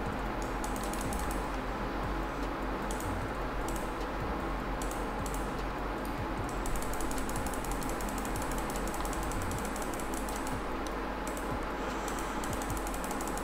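Scattered clicks of a computer mouse and keyboard while working at a desk, over a steady low hum.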